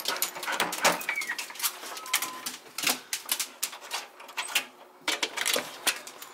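Dogs' claws clicking and scrabbling on a vinyl tile floor as they crowd the back door: rapid, irregular clicks and taps, with a couple of brief high squeaks in the first couple of seconds.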